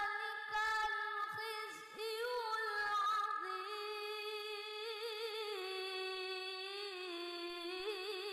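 A boy reciting the Quran in the melodic tilawah style into a microphone, in a high child's voice. He draws out one long phrase, with wavering ornaments on the held notes about two and a half, five and eight seconds in.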